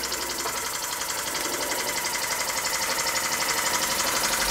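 Court Lodge MK1 model steam engine running steadily: a fast, even beat of exhaust puffs over a steady hiss, growing slowly louder.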